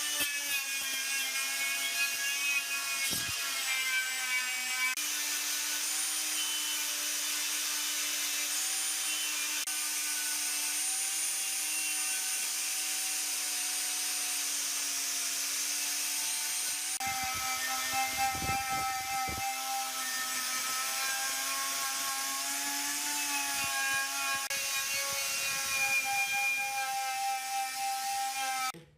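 A small handheld power tool's electric motor running steadily, its pitch wavering a little as it works against a surface. The pitch jumps abruptly about five seconds in and again past halfway, with a few dull knocks.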